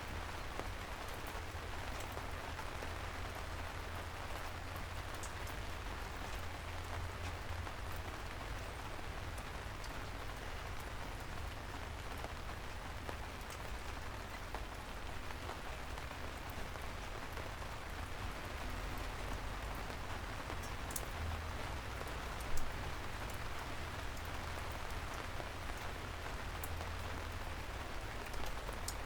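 Soft, steady rain falling, with scattered single drops ticking close by and one louder drip about three-quarters of the way through, over a low steady rumble.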